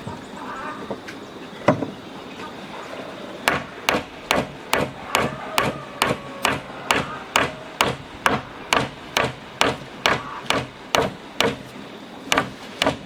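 Repeated sharp strikes on wood at a steady pace of about two to three a second, after a single earlier blow.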